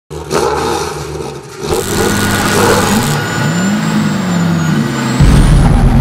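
Car engine revving, its pitch rising and falling, with a heavy low boom coming in suddenly about five seconds in.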